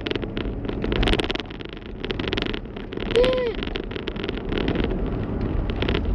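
Car cabin noise while driving: a steady low road and engine rumble with a few hissy surges. About three seconds in there is a short squeak that rises and falls.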